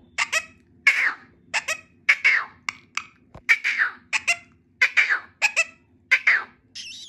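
Indian ringneck parakeet giving a rapid series of short, sharp calls, many in quick pairs, each dropping in pitch, about two to three a second.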